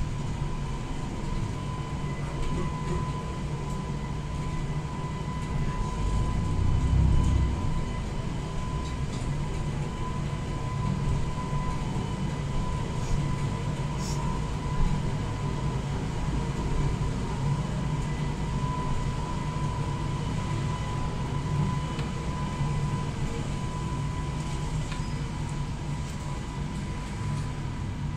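City bus in motion, heard from inside the cabin: a steady drone from the bus's drive and rolling noise, with a thin steady whine above it. The drone swells briefly about seven seconds in.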